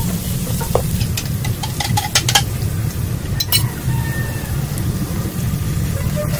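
A wooden spatula stirring and scraping spice paste frying in a nonstick wok. Sharp taps of the spatula on the pan come mostly in the first half, over a steady low hum.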